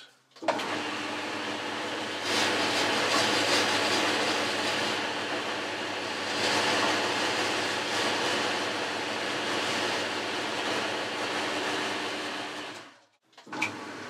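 Boxford lathe switched on with a click about half a second in and running steadily, with the hiss of emery cloth rubbed against the spinning metal roller. The hiss swells twice, and the sound dies away near the end.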